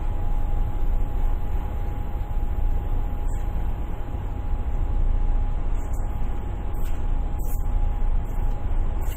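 Steady low rumble of a ship's engine while the ship is underway, with a thin, steady high tone running through it.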